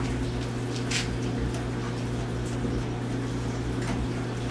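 Steady low hum, with a few faint light clicks from a hand nut driver turning the small 7mm screw at the top of a headlight.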